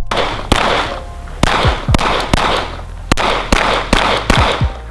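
Glock 19 9 mm pistol firing a string of about ten shots, in quick pairs and runs roughly half a second apart, each followed by a short echo.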